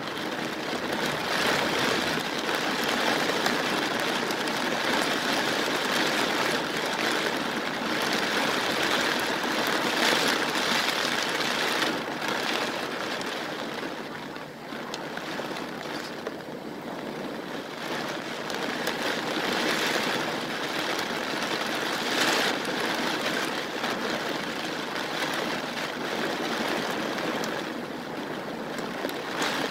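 Heavy rain and strong gusting wind of a storm: a dense rushing hiss that swells and eases with the gusts, dropping back briefly about halfway through.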